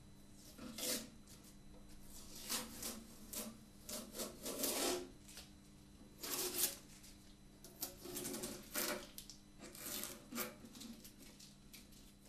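Masking tape being peeled off the edge binding of a sunburst-sprayed archtop guitar body: a string of short, irregular rasping tears, the longest and loudest near the middle. A faint steady hum runs underneath.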